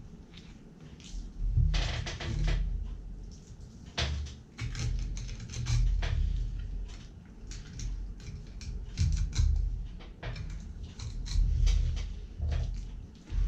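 Boning knife working along a Spanish mackerel's spine and bones on a plastic cutting board: irregular knocks and bumps with short crisp clicks and scrapes as the blade cuts close to the bones.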